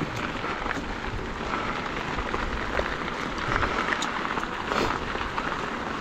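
Mountain bike rolling over a rough dirt and gravel trail: a steady crunching hiss of tyres on loose stones, with scattered small clicks and rattles from the bike.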